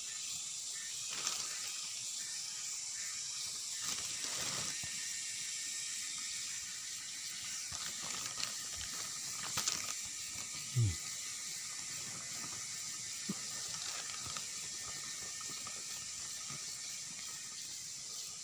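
Soft, scattered rustling of a plastic sack and a pile of wild mushrooms as a hand stirs through them, with a few light clicks. Under it runs a steady high hiss of forest insects.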